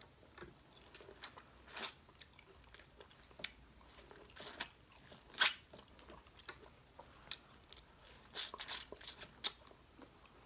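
Close-up eating sounds from a seafood boil of crawfish, shrimp and corn: irregular chewing and crunching with sharp crackling bites, the loudest about five and a half seconds in and again near the end.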